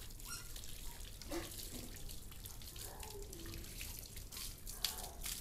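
Water from a garden hose pouring over a dog's wet coat and splashing on a concrete floor, faint and steady, with one brief louder splash near the end.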